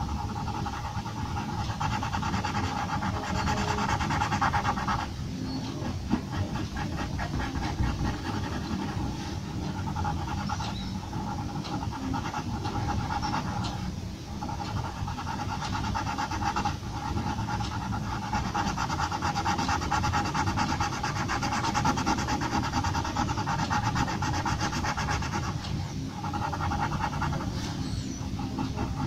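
Graphite pencil scratching on paper in rapid, short, repeated hatching strokes, stopping briefly a few times.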